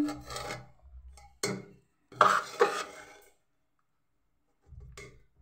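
A spoon scraping and clinking against the pressure cooker while the cooked biryani rice is stirred and fluffed. There is a sharp clink about a second and a half in, a longer bout of clatter just after two seconds, and a smaller knock near the end.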